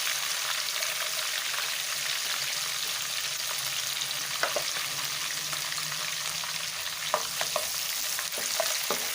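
Crushed garlic and green chillies sizzling steadily in hot oil as they fry crisp, with a few short clicks midway and near the end.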